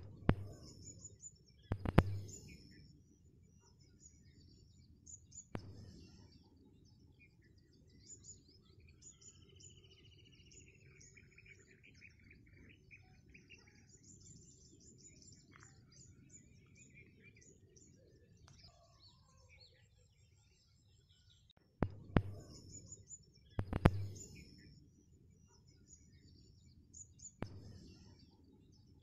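Small birds chirping and singing, with one falling trill about a third of the way through, over a steady low background noise. A few sharp knocks stand out loudest: a pair near the start, one a few seconds later, and a cluster about three-quarters of the way through.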